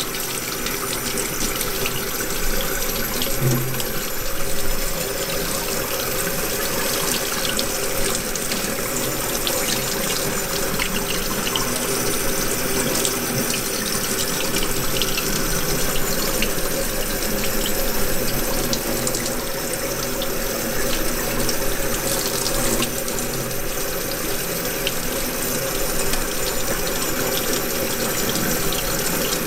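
Tap water running steadily from a faucet, splashing onto a gloved hand and into a stainless steel sink.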